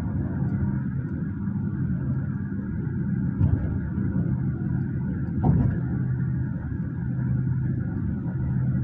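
Cabin noise inside a moving Hyundai Staria van: a steady low rumble of road and engine with a faint hum. Two brief thumps come through, about three and a half and five and a half seconds in.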